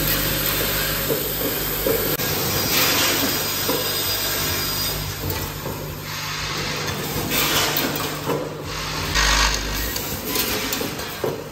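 Vibratory bowl feeders of an automatic counting machine running, humming steadily while small plastic parts rattle and scrape along the bowl tracks. Brief louder rushes of noise come every couple of seconds.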